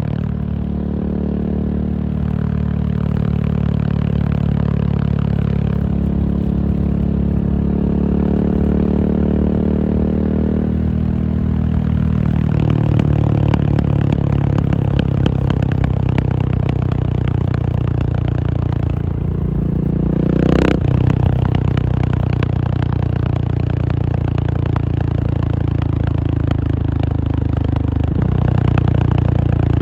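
KTM 690 SMC R's single-cylinder four-stroke engine running at fairly steady speeds. Its pitch rises slowly and shifts a few times, dips briefly about twenty seconds in with a short sharp noise, then holds steady again.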